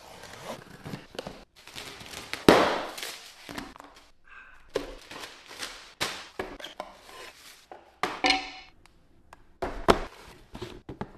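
Packaging being handled and opened by hand: irregular knocks, taps and rustles, with one louder thud about two and a half seconds in.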